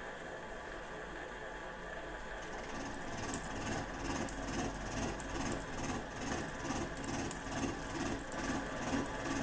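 Milling machine cutting the end of a C45 steel bar, with the spindle at 150 RPM taking a light 0.1 mm cut. A steady machine noise runs under a constant high-pitched whine, and from about three seconds in a soft pulse repeats roughly two to three times a second.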